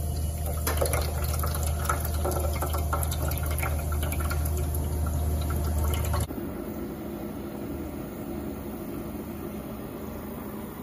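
Water from a stainless steel drinking fountain running and splashing into a plastic coffee-maker water reservoir as it fills, over a steady low hum. The water and hum stop abruptly about six seconds in, leaving a quieter steady background.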